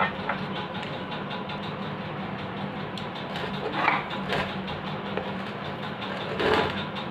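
Hands handling a ceiling fan motor's metal housing, with two short scraping rustles about four seconds in and near the end, over a steady low mechanical hum.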